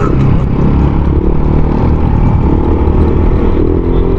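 Honda Click 125 scooter running steadily on the move, its engine sound mixed with loud wind rumble on the handlebar-mounted microphone.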